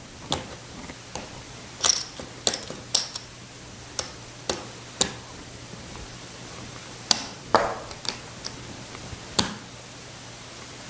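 Casino chips clacking together as they are picked up and stacked by hand on a craps table: about a dozen sharp clicks at irregular intervals, each with a brief high ring.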